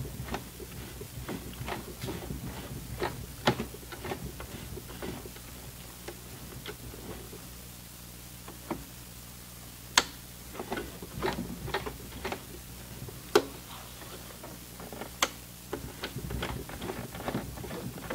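Baby Lock BL9 mechanical sewing machine worked slowly by hand-turning its hand wheel through the thick side seam of a jeans hem. Irregular soft clicks and ticks come as the needle is stepped a stitch at a time and the presser foot is raised and lowered, with four sharper clicks spread through.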